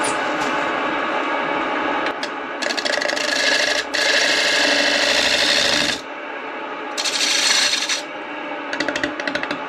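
A bowl gouge cutting the inside of a large black walnut bowl spinning on a midi-lathe at 800 RPM, over the lathe's steady hum. The cuts come as hissing, scraping runs, one about two and a half seconds in, a longer one right after and another about seven seconds in, then several short quick passes near the end.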